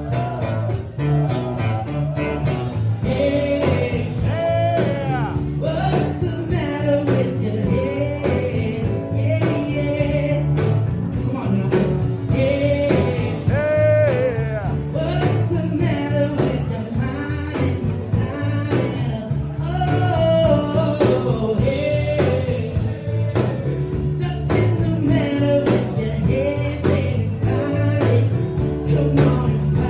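A song: a voice singing over band music with guitar and a steady low bass line.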